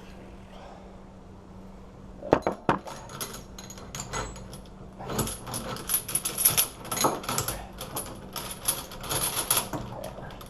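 Steel security chain and a heavy padlock clinking and rattling as they are handled and repositioned. A couple of sharp clanks come about two seconds in, then a longer stretch of quick, irregular metallic clinks with a bright ring.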